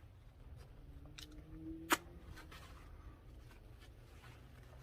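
Quiet chewing of a bite of crunchy fried pita chalupa, with a few faint crunches and one sharp click about two seconds in.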